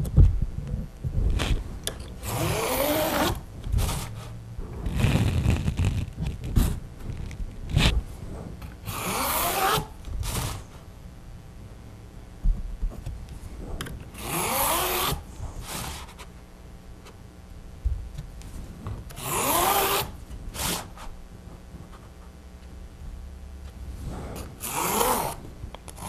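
Grid lines being drawn along a ruler across a stretched canvas: about six strokes, each lasting about a second, with a squeak that slides in pitch. Short knocks, as the ruler is set down and moved, fall between the strokes.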